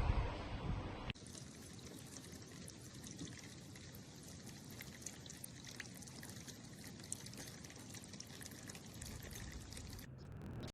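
Water from a solar birdbath fountain's jet splashing and trickling into the basin, steady throughout after a sudden change about a second in. A low rumble is heard in the first second.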